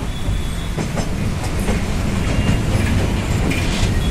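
Passenger train running along the line, heard from aboard a coach: a steady rumble with irregular clacks as the wheels pass over the rail joints.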